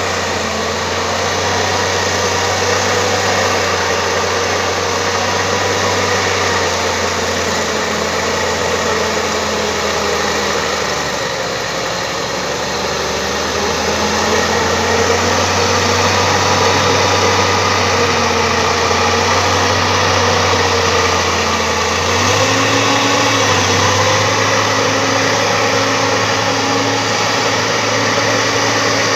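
Bulldozer's diesel engine running steadily, its low drone shifting in pitch about two-thirds of the way through.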